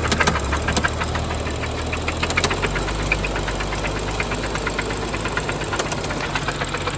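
A 2012 BMW 135i's N55 turbocharged straight-six runs steadily with a rapid, even knocking tick. The owner can't tell whether the tick comes from the lifters or is rod knock, and fears the engine may need replacing.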